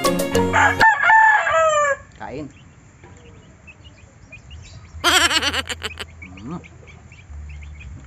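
A rooster crowing twice, once about a second in and again about five seconds in, with chickens clucking softly in between.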